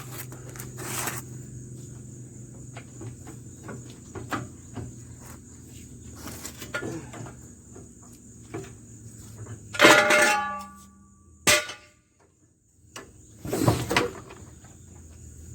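Scattered clicks and knocks of metal hand tools and a jack as the vehicle is lowered. A loud metal clank rings briefly about ten seconds in, followed by a sharp click, with another knock near the end. A steady high insect drone runs underneath.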